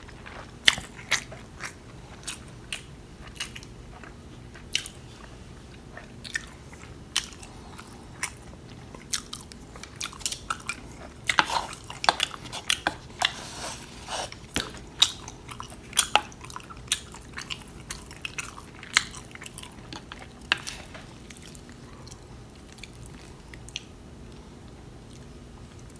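Close-miked eating sounds: biting and chewing, with irregular sharp clicks and scrapes of a wooden spoon in a wooden bowl of mixed rice. The clicks come thickest in the middle and thin out near the end, over a faint steady hum.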